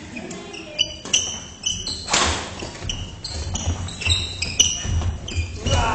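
Badminton rally on a wooden gym floor: court shoes squeaking in many short high chirps as players push off and stop, with footfalls thudding and the odd sharp crack of a racket hitting the shuttlecock, echoing in the hall.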